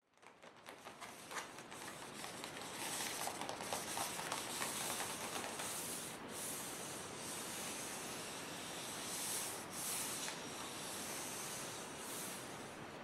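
Fingertips rubbing and scratching across the cover of an Arches watercolor paper block, a soft dry scratchy rustle with a few light taps. It fades in over the first couple of seconds.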